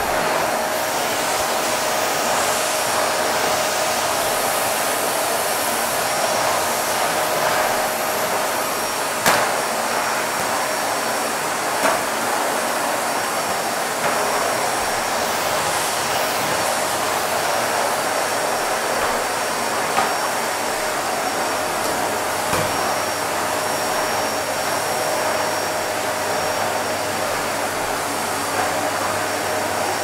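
Vacuum cleaner running steadily: an even rushing hiss with a thin steady whine through it, and a few faint knocks.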